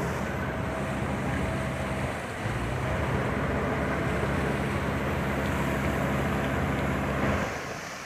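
JCB 3DX backhoe loader's diesel engine running steadily while it wades through a river, with heavy splashing and spraying of water thrown up by its wheels. The sound drops away near the end.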